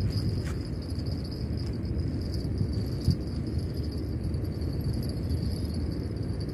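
A steady, thin, high-pitched insect drone, like cicadas or crickets, over a continuous low outdoor rumble. A single light tick comes about three seconds in.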